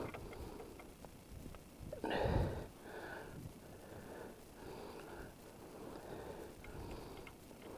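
A man breathing audibly as he strains, with one louder breath about two seconds in and fainter breaths after it.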